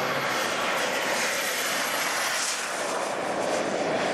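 Turbine engine of a radio-controlled F-16 model jet at high power on its takeoff run and climb-out: a steady rushing jet noise with a thin high whine that rises slightly in pitch and thins out near the end.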